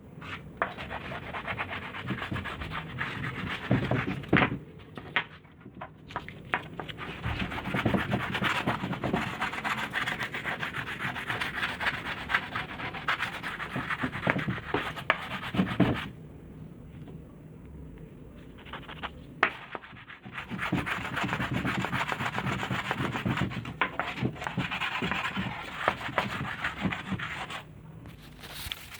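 Hand sanding of wood with sandpaper: a continuous scratchy rubbing that eases off for a few seconds past the middle, then resumes.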